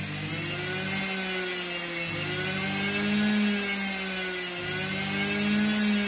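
Washing machine motor spinning unloaded under a TDA1085 speed controller, a steady whine whose pitch drifts gently up and down as the controller holds its speed.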